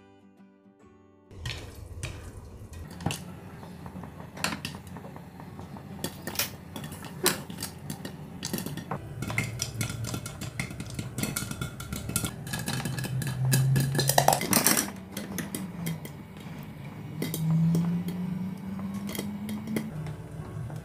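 Whole moong dal sizzling and crackling in hot ghee in a covered pan, starting about a second in, with many sharp pops and clicks and clinks of the glass lid.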